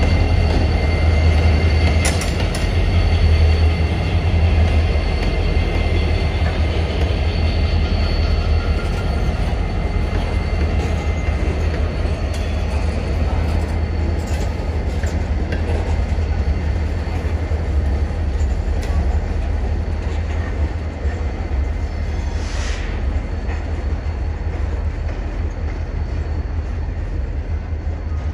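Two CSX SD40-3 diesel-electric locomotives, with 16-cylinder EMD 645 engines, running past with a deep steady rumble, then covered hopper cars rolling by on the rails. The sound slowly fades as the train moves away.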